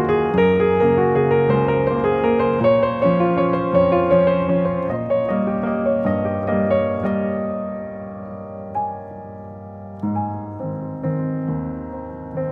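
Background music of soft solo piano playing held chords and a slow melody, thinning out and growing quieter about two-thirds of the way through.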